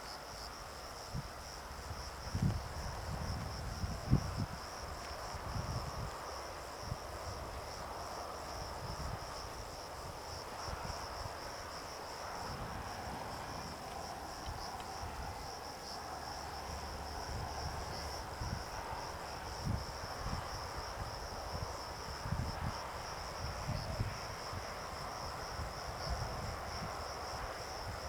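Insects chirring steadily in a high, continuous drone, with irregular low rumbling bumps underneath.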